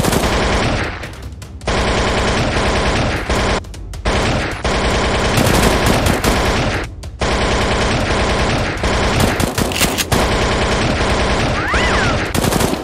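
Long bursts of rapid automatic gunfire sound effects, dubbed over a toy-blaster fight, broken by three short pauses.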